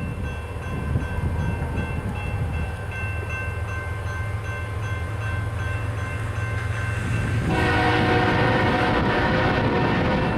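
GE ES44C4 diesel locomotive running with a steady low rumble as the train approaches; about seven and a half seconds in its air horn starts blowing a chord and holds it.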